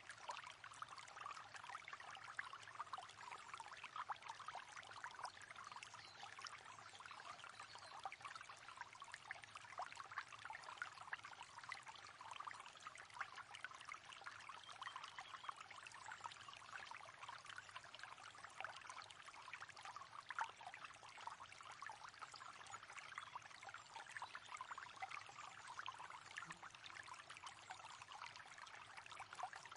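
River water flowing steadily, with a dense run of small splashes.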